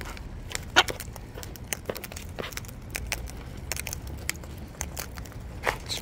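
Sulphur-crested cockatoos cracking and crunching seeds from a plastic tray of seed mix: irregular sharp cracks and clicks, one louder crack about a second in.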